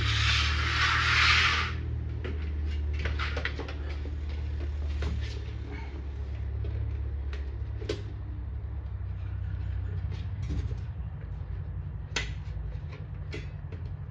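Scattered clicks and knocks of parts being handled over a steady low hum, with a short hissing rasp at the start.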